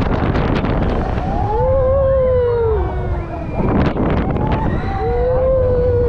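Wind buffeting the microphone aboard a moving Zamperla Disk'O coaster. Two long wailing tones rise and fall, one near the middle and one near the end, and there are rushing bursts of ride noise near the start and about two thirds of the way in.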